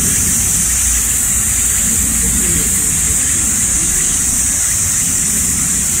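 Steady outdoor ambience: a continuous low rumble with a constant high-pitched drone above it.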